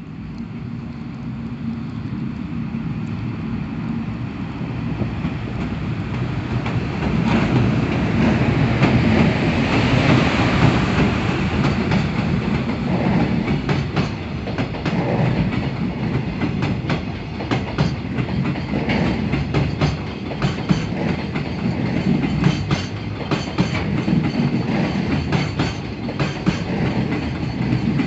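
Freight train hauled by an EF510 electric locomotive approaching and running past, its rumble growing over the first several seconds. The wagons' wheels then clack rhythmically over the rail joints.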